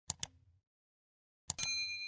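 Subscribe-animation sound effects: two quick mouse clicks, then about a second and a half in another click followed by a bright notification-bell ding that rings on and fades.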